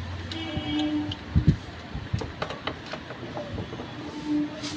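Spark plug being unscrewed from a Hero Pleasure scooter's cylinder head with a plug socket: scattered metallic clicks and scrapes of the tool, with one sharper knock about a second and a half in. A steady background tone sounds twice, briefly, near the start and near the end.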